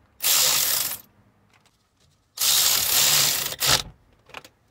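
Cordless ratchet running in two bursts of about a second each, driving home the steering column's mounting bolts, followed by a few short clicks.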